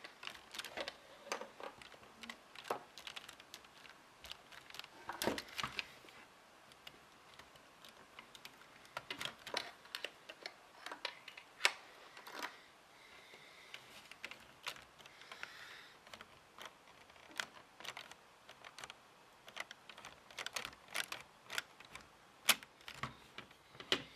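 Irregular sharp clicks and taps of hard plastic Lego parts being handled and worked, with a few louder snaps among them.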